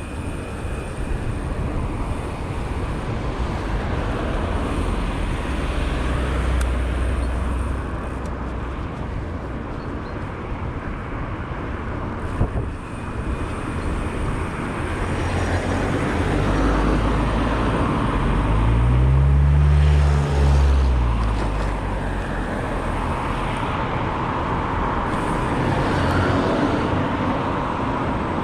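Road traffic heard from a moving bicycle, with wind rumbling on the microphone. About two-thirds of the way through, a vehicle passes close, its engine tone rising and then falling as it goes by.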